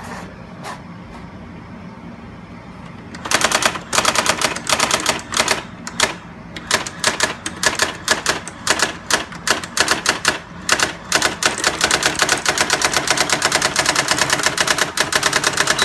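Brother GX-6750 daisy-wheel electronic typewriter printing as it is typed on. After about three seconds of quiet, a rapid clatter of print strikes begins in short bursts, then turns into a fast, nearly unbroken run about eleven seconds in.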